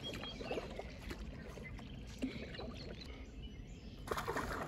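A hooked largemouth bass thrashing and splashing at the water's surface for about half a second, about four seconds in, over a steady low rumble.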